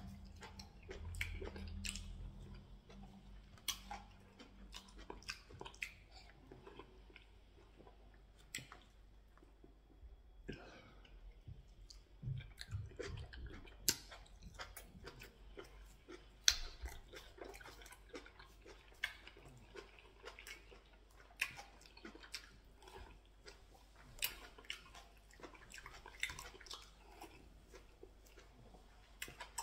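Close-up mouth sounds of a person eating pounded yam with ogbono soup and stew by hand: wet chewing and lip smacks, with many sharp, irregular clicks.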